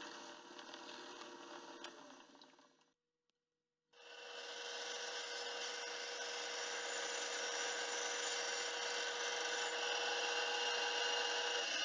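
A hand tool scraping on wood, in two stretches: one that stops about three seconds in, then after a second of silence a louder, steady stretch of scraping.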